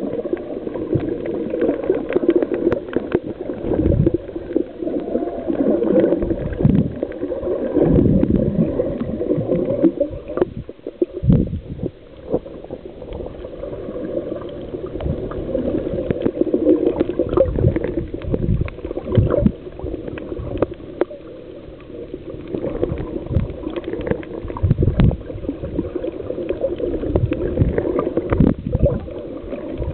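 Muffled water sloshing and gurgling around a snorkeler's camera, with uneven low thuds and swells.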